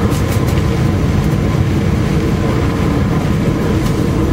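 Steady loud rumble of an Austal high-speed ferry's engines and hull heard inside the passenger cabin while it runs at speed in rough seas, with a few light rattles near the start and once near the end.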